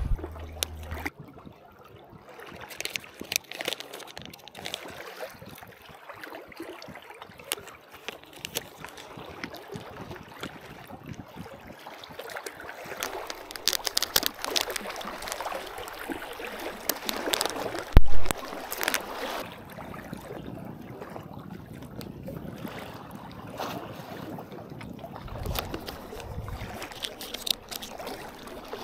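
Seawater sloshing and gurgling among concrete tetrapods, in irregular splashes, with one loud dull thump about two-thirds of the way through.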